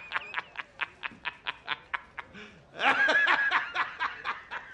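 A man laughing hard and long in quick, rhythmic 'ha-ha' pulses, about five a second, breaking into a high-pitched squeal about three seconds in before the pulses trail off.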